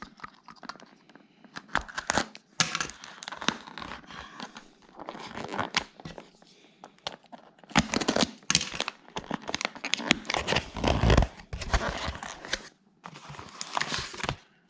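Packaging being torn open and crinkled by hand in irregular bursts, with a couple of heavier thuds about eight and eleven seconds in.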